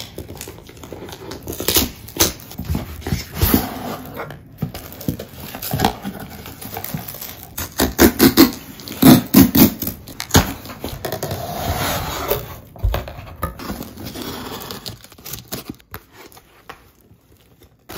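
Cardboard shipping boxes being opened by hand: packing tape peeled and pulled, cardboard flaps torn, scraped and pulled open, with irregular sharp rips, scrapes and rustling. It is busiest about halfway through and quieter near the end.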